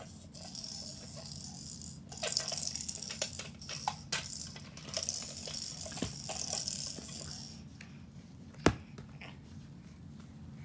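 Packaging crinkling and rattling as it is handled, in several bursts, followed near the end by one sharp click that is the loudest sound.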